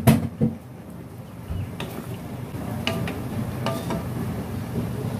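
Wooden spatula stirring okra in a watery mustard-poppy-seed gravy in a steel kadai, knocking against the pan twice right at the start, then a steady low stirring and simmering noise.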